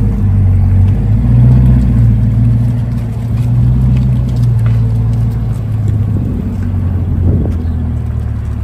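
Chevrolet C8 Corvette's V8 engine idling steadily with a deep, low exhaust note.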